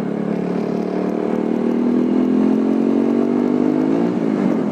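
TVS Apache motorcycle's single-cylinder engine pulling under throttle, its pitch rising steadily for about four seconds, then dropping sharply near the end.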